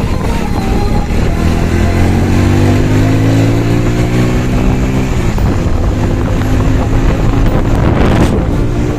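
Motorcycle engine under way, pulling up with its pitch rising for the first few seconds, then dropping abruptly about five seconds in and running on steadily.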